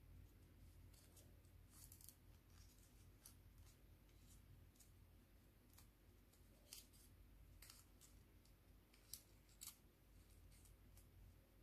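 Faint crackling and rustling of paper being folded and creased by hand, with a few sharper crackles about two thirds of the way in, over a low steady hum.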